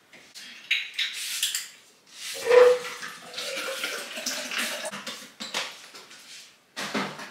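Water running into a glass for about three seconds, with a faint tone that edges slightly higher as it fills. Short clinks and knocks of glassware come before it and near the end.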